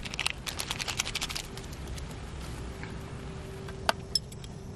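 A plastic ramen sachet crinkling and crackling for about a second and a half as it is torn open and squeezed out over the pot, followed by a faint steady hum and one sharp tap near the end.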